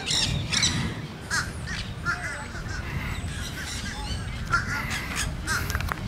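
Monk parakeets giving harsh, squawking calls, short and repeated, several in quick succession, over a steady low rumble.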